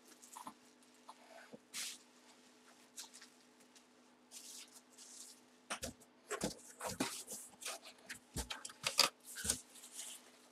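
Bubble wrap around a football helmet rustling and crinkling as it is handled, sparse at first and busier from about six seconds in, with a few soft knocks. A faint steady hum runs underneath.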